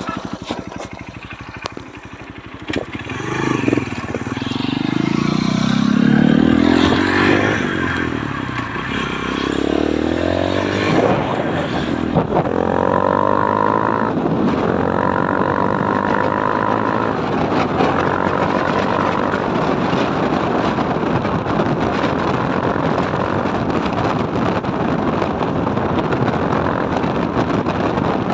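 Honda CRF150's single-cylinder four-stroke engine through an open, loud aftermarket 'kalkal' exhaust pipe, revved up and down several times, then pulling away and accelerating through the gears with a rise in pitch and a drop at each shift before settling into a steady run.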